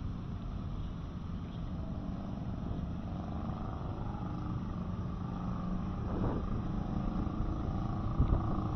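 Traffic on a nearby road: a steady rumble of passing vehicles, with an engine growing slightly louder in the second half.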